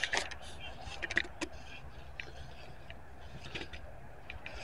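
Footsteps through dry fallen leaves: irregular crunching and rustling, busiest at the start and around a second and a half in, then softer scattered rustles.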